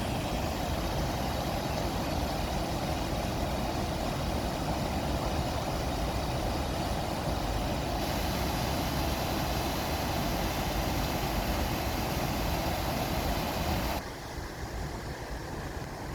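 Stream water rushing steadily over rocks. Its character shifts abruptly about halfway through, then it drops quieter near the end.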